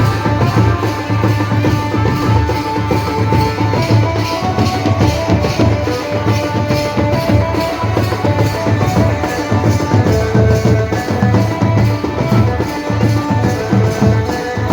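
Adivasi band vaja playing a dance tune: a steady, driving drum beat under a sustained melody line.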